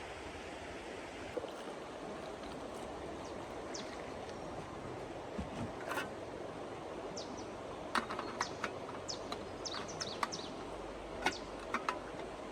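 Steady rush of flowing water, with scattered short ticks and chirps that come more often in the second half.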